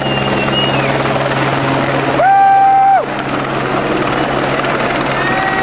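Steady helicopter drone, with several long held tones over it; the loudest, under a second long, comes about two seconds in.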